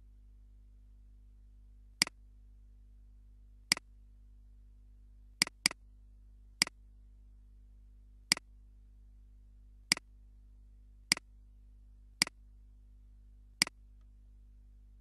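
Computer mouse button clicking about ten times at irregular intervals, one of them a quick double-click, over a steady low electrical hum.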